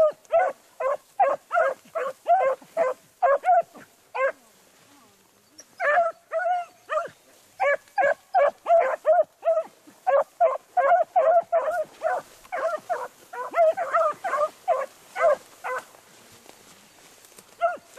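Beagle hounds baying in a fast run of short barks, about three a second, with a brief break about four seconds in and stopping at about fifteen seconds: the hounds giving tongue as they trail a rabbit's scent.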